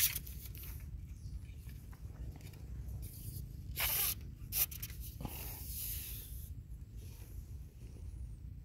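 Close rustling and scraping from hands handling fishing bait and a hook, in short bursts about four and six seconds in, over a steady low rumble on the microphone.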